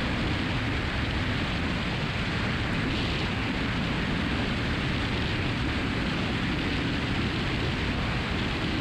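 Steady drone of a Cessna 172's engine and propeller in cruise, heard as an even, muffled rush through the cockpit intercom.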